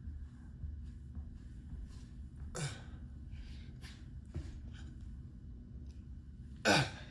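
A man's forceful exhales from the effort of push-ups, two in about four seconds, each a short rush of breath that falls in pitch, over a steady low rumble.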